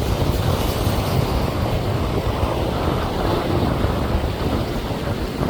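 Wind buffeting the microphone in a steady, uneven low rumble, over the rush of ocean surf against the rocks.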